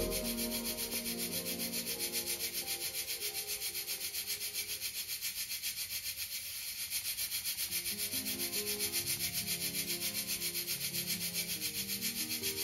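Pressure cooker hissing steam in an even, rapid pulse, about five puffs a second, as it cooks under pressure.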